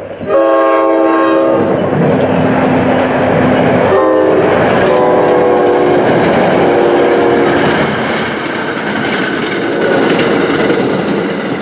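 EMD GP40PH-2B diesel locomotive sounding its multi-chime air horn: one long blast at the start, then a short blast and two longer ones a few seconds later. Underneath runs the steady rumble of the locomotive and commuter coaches passing on the rails.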